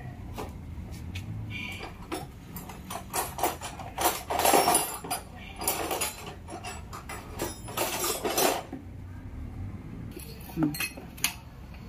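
Metal hand tools and engine parts clinking and knocking during engine assembly, with two longer clattering stretches about four and eight seconds in.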